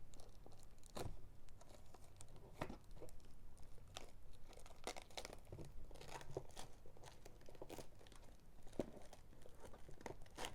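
A sealed Pokémon card booster box being opened by hand: faint, scattered crinkling and tearing of its packaging, with light clicks and rustles.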